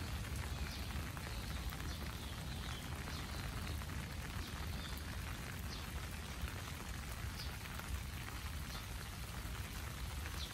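Steady rain falling on the trees and grass of a park, an even patter of many small drops, over a constant low rumble.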